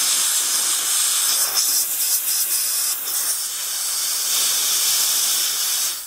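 Compressed air from an airline hissing steadily through a Badger 155 Anthem airbrush body via a quick-disconnect plug, blowing out any bits left after a new needle bearing was fitted. The hiss cuts off at the very end.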